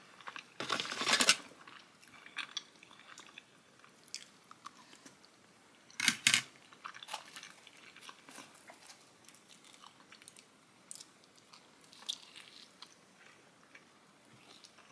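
Close-up chewing of pizza: wet mouth sounds and small clicks, with two louder crunchy bites, one about a second in and one about six seconds in.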